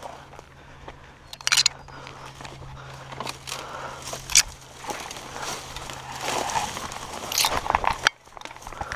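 Footsteps crunching through dry brush and grass, with twigs and branches scraping and snapping against clothing and gear; sharper cracks stand out about one and a half and four and a half seconds in.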